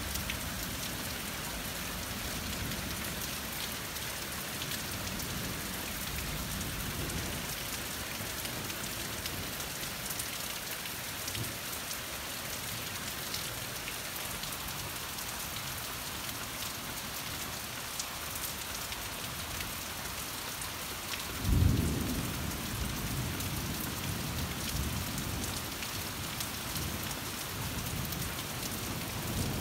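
Steady rain falling, with scattered ticks of drops. About two-thirds of the way through, a loud, low thunderclap breaks in and rumbles on, fading over several seconds.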